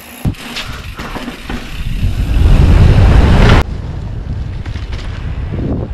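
Wind rushing over the camera microphone of a moving mountain bike, building to its loudest and then cutting off abruptly about three and a half seconds in, followed by a steadier rush of wind and rolling on asphalt. A single sharp knock just after the start.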